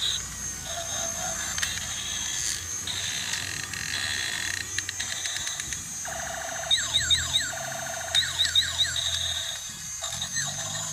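Plastic clicking and rattling of a transforming toy truck's joints as its parts are swung and folded by hand, with a quick run of fine clicks about five seconds in. Two short bursts of quick chirps come about seven and eight seconds in.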